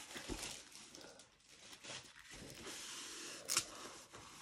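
Faint rustling of a rolled diamond-painting canvas being unrolled and pressed flat by hand, with one short sharp crinkle about three and a half seconds in.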